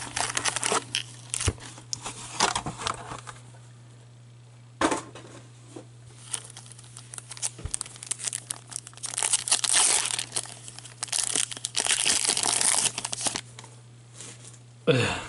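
Foil wrappers of Upper Deck hockey card packs crinkling and tearing as they are opened by hand, in several bursts with quieter gaps between.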